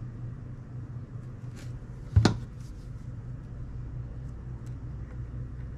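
Needle-nose pliers and wire clicking against a carved wooden popper lure as a wire is fitted into its nose, with one sharp click about two seconds in and a few faint ticks around it, over a steady low hum.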